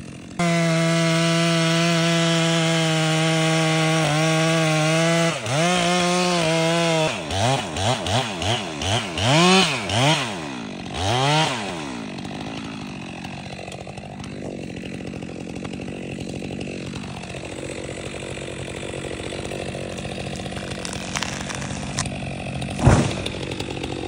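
Stihl chainsaw felling a dead ash tree. It runs at steady full throttle through the cut, then is revved up and down about eight times in quick succession, then runs quietly at idle. Near the end a single heavy thud, typical of the trunk hitting the ground.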